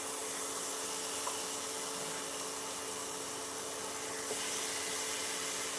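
Armadillo meat sizzling in a hot frying pan on an induction cooktop as pieces are laid in: a steady hiss that grows a little louder about four seconds in, over a steady low hum.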